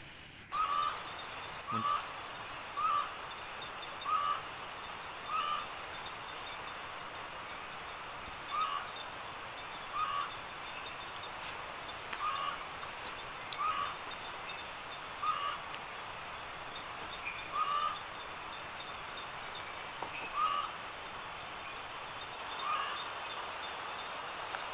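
A night bird calling from a tree: short, single-note calls repeated about once a second at first, then at irregular gaps, over a steady night-time hiss.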